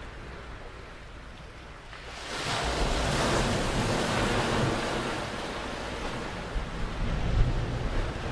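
Shore surf: a small wave breaking and washing up the beach, a rush of water that swells about two seconds in and slowly fades, with wind rumbling on the microphone.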